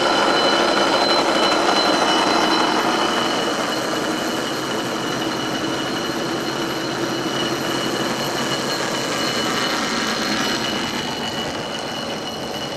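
Cable car running past on its rails at a level crossing, the running noise slowly fading from about three seconds in as it moves away. Steady high ringing from the crossing's warning bell goes on throughout.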